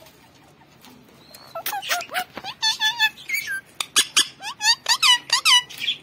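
Indian ringneck parrot chattering in a rapid run of short, high, squeaky calls that start about a second and a half in.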